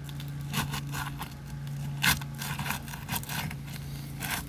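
A roofing tool scraping and prying at asphalt shingles, in irregular short scrapes and clicks with a sharper crack about two seconds in, over a steady low hum.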